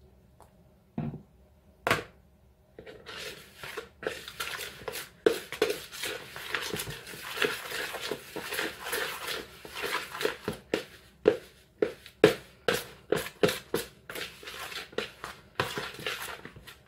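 Two short knocks, then hands working soft cheese-scone dough in a plastic mixing bowl: an uneven run of squishing and scraping with frequent sharp taps against the bowl.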